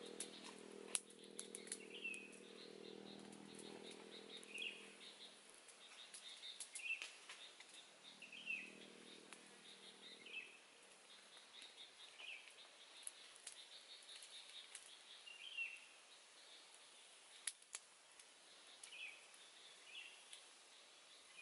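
Faint outdoor ambience: a bird repeats a short chirp about every second and a half, over scattered sharp clicks and crackles. A low hum runs for the first few seconds and returns around eight to ten seconds in.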